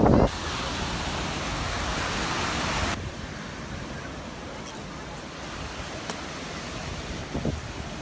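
Surf washing on a sandy beach: a loud hissing rush for the first three seconds that cuts off sharply, then a quieter steady wash of waves.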